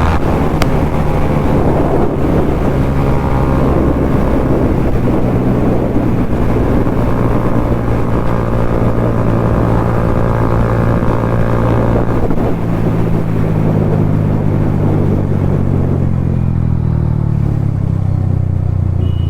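Bajaj Pulsar NS200's single-cylinder engine through an aftermarket Akrapovic exhaust, running at high revs at speed, with heavy wind noise over it. About twelve seconds in the engine note starts to fall steadily as the bike slows down.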